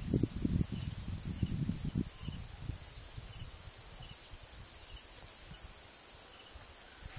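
Low rumbling gusts on the microphone for the first couple of seconds, dying away into a quiet outdoor background. Under it, insects keep up a thin, steady high drone with faint chirps about once a second.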